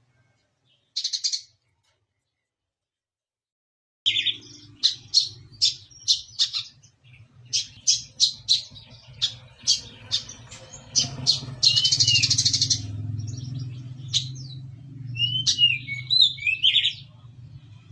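Brown-throated sunbird (kolibri kelapa) singing: a brief chirp, a short silence, then a fast run of sharp high chirps, a buzzy trill around the middle and a few slurred, curving notes near the end. A low steady hum sits under the song.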